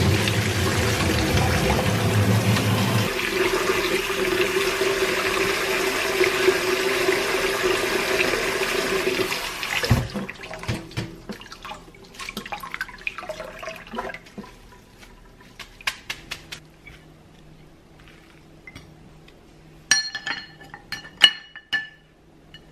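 Kitchen tap running water into a sink, shut off suddenly about ten seconds in. It is followed by scattered light clatter and a couple of ringing clinks of dishes near the end.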